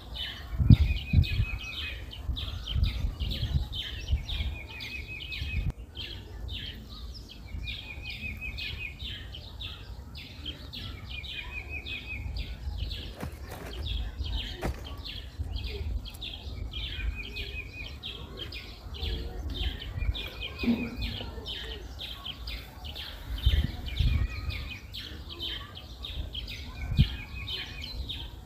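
Birds singing: one bird repeats a short trill every few seconds while other birds chirp continuously higher up. Low rumbles and a few soft knocks sit underneath.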